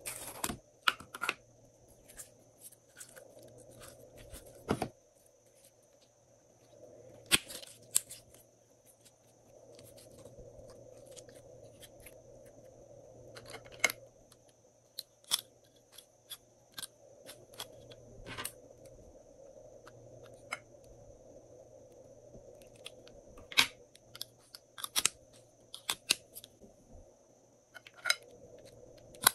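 Scattered sharp clicks and taps, some in quick clusters, as hands handle plastic containers and squeeze slime out over a glass bowl, over a faint steady hiss.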